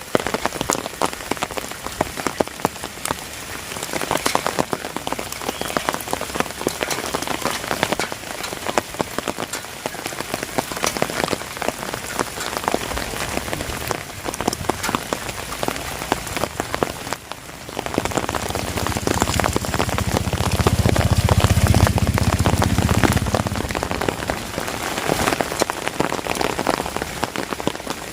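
Heavy rain falling, a dense patter of drops. A low rumble swells about two-thirds of the way through and fades a few seconds later.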